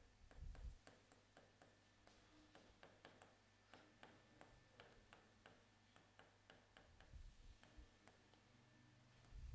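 Faint, irregular ticks and taps of a stylus on an interactive touchscreen board as words are written, about two or three a second, over a faint steady low hum.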